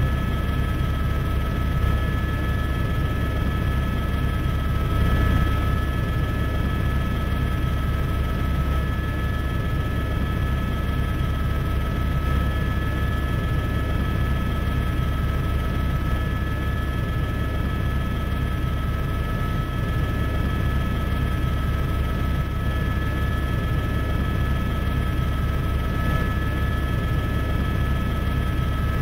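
Helicopter running steadily: a constant low rotor and engine drone with a steady high whine over it.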